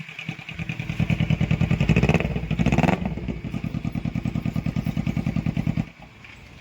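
Kawasaki Ninja 300 parallel-twin engine running with the stock exhaust removed, so it fires out of the bare header with a rapid, loud pulsing. It is revved briefly about two to three seconds in, settles back to idle, and is cut off shortly before the end.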